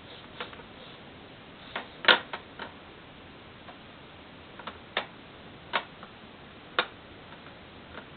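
Plastic balls rolling down the spiral track of a Kuru Kuru Chime ball-drop toy, clacking as they drop from one level to the next. The sharp clicks come irregularly, loudest about two seconds in, then about one a second.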